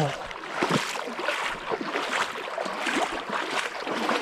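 A person wading across a river, water splashing and sloshing around the legs in irregular surges.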